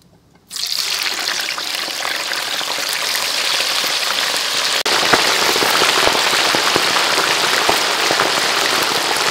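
Raw chicken pieces going into a wok of hot deep-frying oil: the oil starts sizzling loudly all at once about half a second in and keeps up a dense, steady sizzle with scattered pops.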